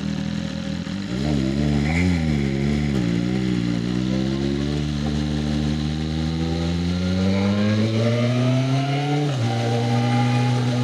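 BMW S1000RR's inline-four engine on its stock, catalysed exhaust pulling away: the revs waver for the first few seconds, then climb steadily, drop with an upshift about nine seconds in and start climbing again.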